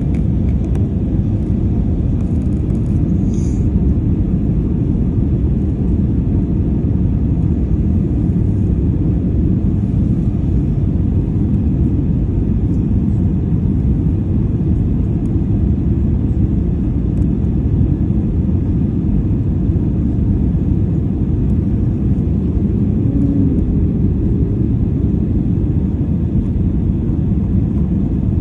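Airliner cabin noise during the descent to land: the engines and rushing air make a steady, even low rumble.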